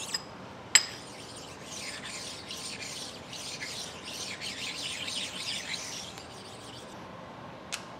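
A sharp metal clink about a second in, then several seconds of rhythmic rubbing as steel test blocks are slid and wiped by hand across the surface grinder's magnetic chuck. A light tick near the end.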